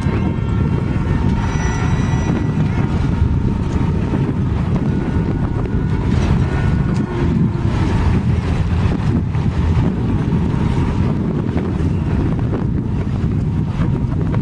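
Wind buffeting the microphone on a boat, a steady low rumble, with faint steady tones in the background.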